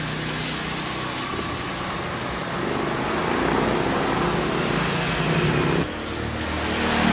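Steady engine hum, growing louder a couple of seconds in and dropping off sharply near the end.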